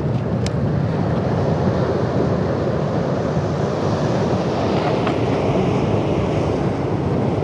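Ocean surf washing over steady wind rumble on the microphone.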